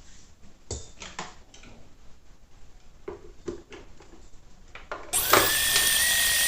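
A few light knocks and clicks, then about five seconds in an electric kitchen mixer switches on with a short rising whine and runs steadily, beating butter and sugar together.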